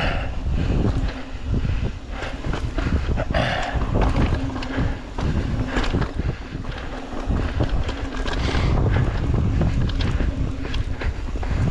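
Mountain bike rolling fast downhill over dirt and rock: steady rumble of the tyres and wind buffeting the microphone, with frequent knocks and rattles as the bike hits bumps.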